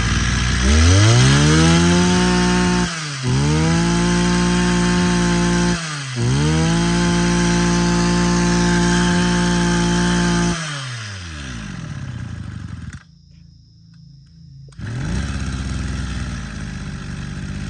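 Mitsubishi TL231 23cc two-stroke brush cutter engine run for a demonstration, opened to full throttle three times and held high for a few seconds each time before dropping back to idle. The sound falls away sharply for a couple of seconds near the end, then the engine runs up again.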